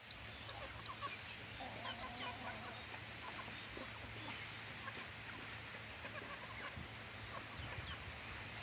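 Domestic chickens clucking softly while feeding, with scattered short chirps.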